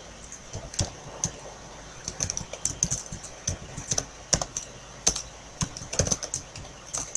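Typing on a computer keyboard: an irregular run of quick key clicks, sometimes in small bursts of several keys, with short pauses between.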